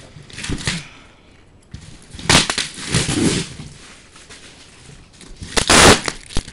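A cardboard parcel being handled and opened by hand: a few short bursts of rustling, scraping and ripping, the loudest about five and a half seconds in.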